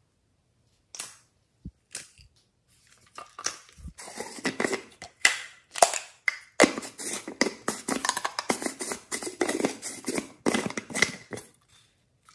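A hard plastic strawberry-shaped case being handled and pulled open, giving a few sharp clicks at first and then a dense run of crackles and clicks that stops shortly before the end.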